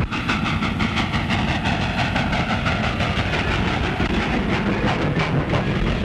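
Steam locomotive running toward the listener, with a fast, rhythmic chuffing and clatter of wheels on the rails.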